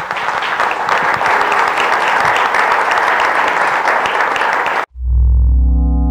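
Audience applauding, a dense steady clatter of clapping that cuts off abruptly about five seconds in. Soft sustained outro music with low held tones follows.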